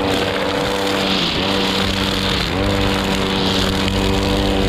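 Brush cutter's small engine running at high revs while it cuts grass along a roadside guardrail; its pitch sags briefly twice under load and comes back up.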